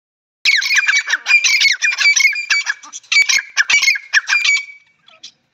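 Grey francolin calling at close range: a rapid string of high, quick notes in several bursts, starting about half a second in and dying away near the end.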